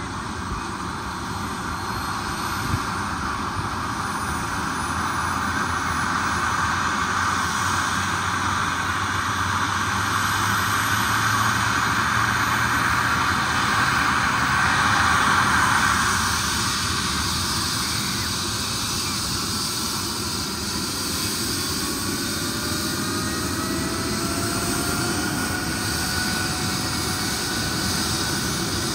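MD900 Explorer helicopter's turbine engines running during startup: a steady jet-like rush that builds and then eases about sixteen seconds in, followed by whines slowly rising in pitch as the engine spools up.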